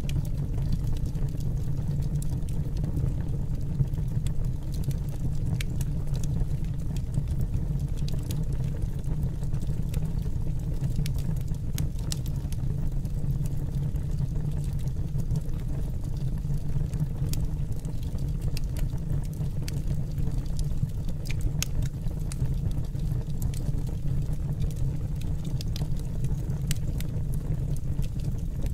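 Steady low roar of a burning flame, with faint scattered crackles.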